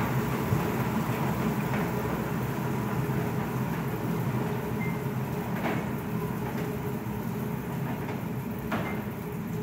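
Water-powered gristmill running: the wooden cog gearing and the 1,300-pound millstone turning and grinding corn, a steady low rumble with a few sharp knocks. It grows slowly quieter toward the end.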